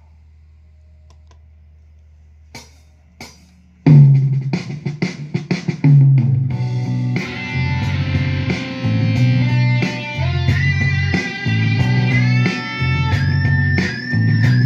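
Les Paul-style electric guitar through an amplifier. First there is a low steady hum and a couple of clicks. About four seconds in, a loud riff starts with short hits and heavy low notes, then moves into held notes, with string bends and vibrato near the end.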